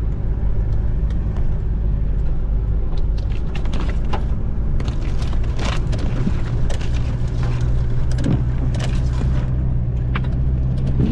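Car engine running, heard from inside the cabin as a steady low drone, with scattered light clicks and knocks.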